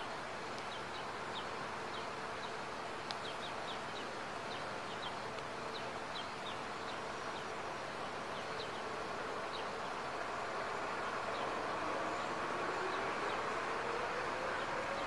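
Outdoor ambience: a steady hiss with scattered short, high chirps through the first half. A faint low tone slowly rises in pitch near the end.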